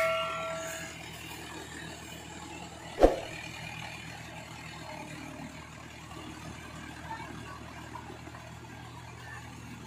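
Mahindra 575 DI tractor's four-cylinder diesel engine running steadily under load as it drives a rotavator through a flooded paddy field. A chime fades out at the start, and a single sharp knock comes about three seconds in.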